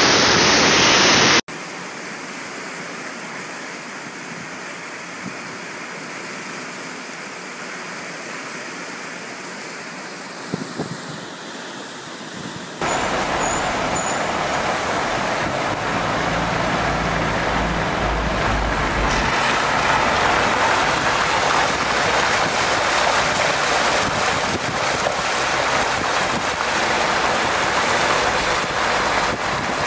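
Flooded waterfall rushing, cut off suddenly about a second and a half in, followed by a quieter steady rushing hiss. About thirteen seconds in it switches to a vehicle engine running, heard from inside the cab while driving, with steady road and wind noise.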